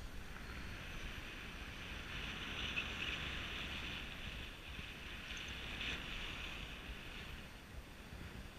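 Faint, steady rush of wind over a pilot-mounted camera's microphone in paraglider flight, swelling a little about three seconds in and again near six seconds.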